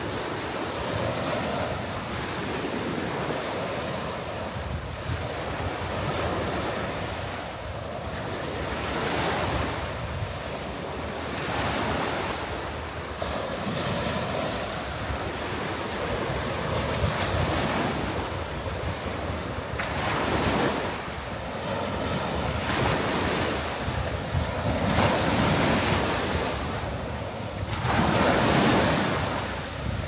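Small waves breaking and washing up a coarse sand beach, each wash swelling and fading every few seconds, the loudest near the end. Wind buffets the microphone.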